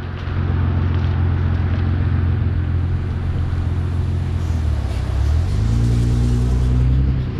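Nissan GT-R R35's twin-turbo V6 running at a steady cruise, heard from a microphone outside the car, with a hiss of tyres on the wet road. About five seconds in, the engine note shifts and rises as the revs change.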